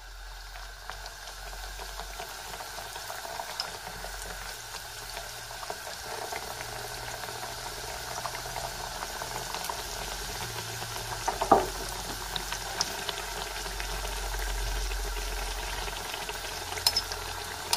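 Pişi dough pieces deep-frying in hot oil: a steady bubbling sizzle that grows gradually louder as more pieces go into the pan, with one sharp tap a little past halfway.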